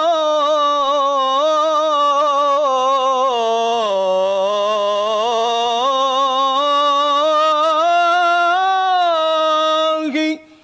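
A man's solo voice chanting an Islamic ibtihal, drawing out one long vowel with quavering turns; the pitch sinks lower about four seconds in, climbs back, and the line ends about ten seconds in.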